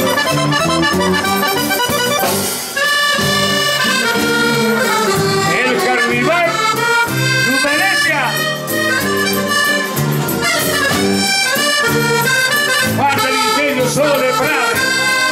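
Piano accordion playing live, a quick melody of rapidly changing notes over a steady accompaniment.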